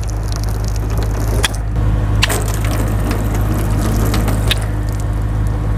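Water from a Snubby hose spray gun running over a car's paintwork and splashing off the panels, as the rinse water sheets off the freshly washed paint. A steady low rumble runs underneath, with a few short clicks.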